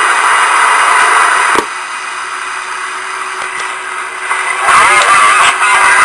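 CB radio receiver static from band noise and distant skip signals: loud hiss that drops off suddenly about a second and a half in, leaving a faint steady whistle, then warbling, garbled signals come back near the end.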